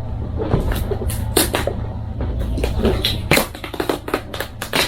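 A cardboard speaker box being opened by hand: a quick, irregular run of scrapes, rips and rustles of cardboard and packing, over a low steady hum.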